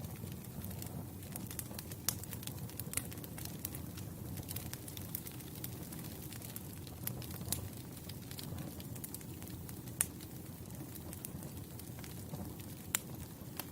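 Campfire crackling: the steady low rumble of the burning fire with scattered sharp pops, the loudest about ten seconds in.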